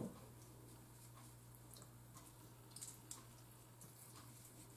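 Near silence: faint wet squishing and a couple of small clicks about three seconds in, from hands working seasoning under raw chicken thigh skin, over a low steady hum.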